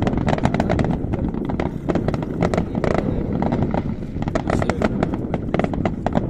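Fireworks display: a rapid, unbroken barrage of bangs and crackles, many a second, over a steady low rumble.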